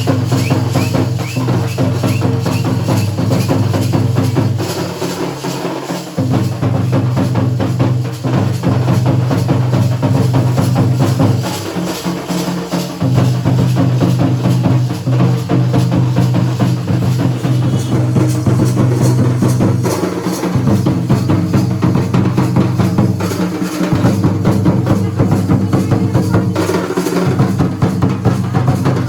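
Kurum dhol and nagada drums beating a fast, dense rhythm, with a deep low tone coming in and dropping out every few seconds.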